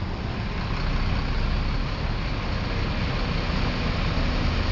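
Road traffic noise: a steady rumble and hiss of passing vehicles, with no horn sounding. It gets a little louder about a second in.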